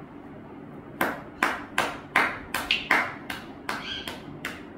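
A run of sharp claps, about three a second, starting about a second in.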